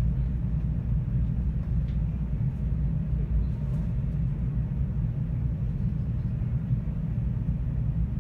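Steady low rumble of a 521 series electric train running, heard from inside the passenger car.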